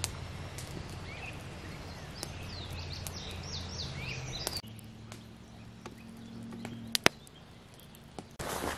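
Outdoor ambience with a steady low hum, a quick run of about five bird chirps between three and four and a half seconds in, then a quieter stretch with a pair of sharp clicks about seven seconds in.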